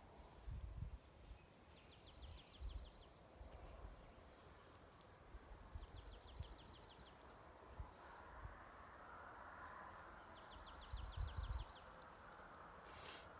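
A small songbird singing a short, rapid high trill three times, about four seconds apart, over a quiet background with a few low thumps.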